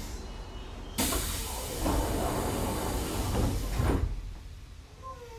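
Passenger doors of a Semboku 5000 series electric train sliding with a hiss of compressed air, heard from inside the car; the hiss starts suddenly about a second in and ends with a knock as the doors meet about three seconds later.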